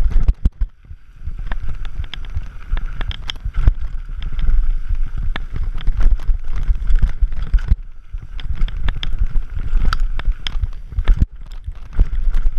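Scott Gambler 720 downhill mountain bike descending a rough dirt trail. Heavy wind and tyre rumble on the camera microphone, with the chain, frame and suspension clattering in quick knocks over bumps.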